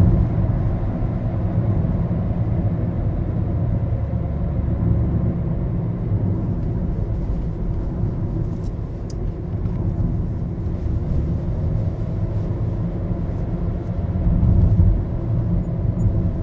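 Road and engine noise heard inside a moving Maruti Suzuki Baleno's cabin: a steady low rumble that swells briefly near the end.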